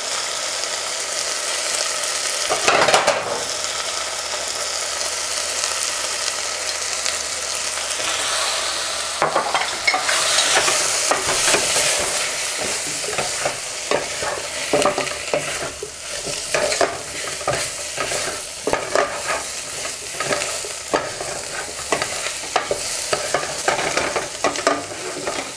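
Onion, tomato and ground spices sizzling in hot oil in a pan as the masala is fried and stirred. From about a third of the way in, frequent short scraping strokes of the stirring break through the steady sizzle.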